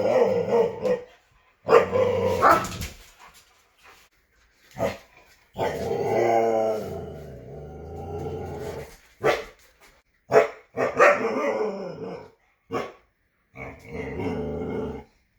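Huskies 'talking': a string of short, pitched woo-woo vocalizations with gruff, growly barks, broken by brief pauses, including one long drawn-out call with a wavering pitch around the middle.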